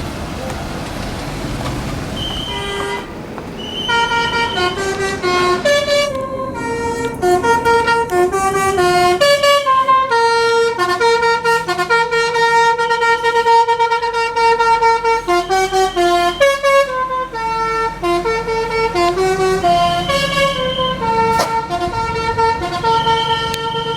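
Tour bus's multi-tone 'telolet' air horn playing a tune of stepped notes, starting about three seconds in over the noise of the passing vehicle and continuing to the end.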